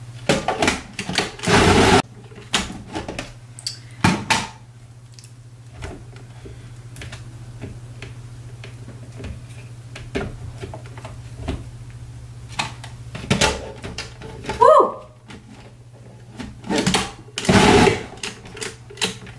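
Plastic food processor bowl and lid being handled as raw horseradish chunks are dropped in: scattered knocks and short rattling bursts, the longest about two seconds in and again near the end. A steady low hum runs underneath.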